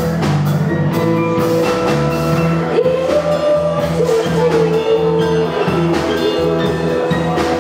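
Music with percussion and sustained pitched notes, one held note bending in pitch midway.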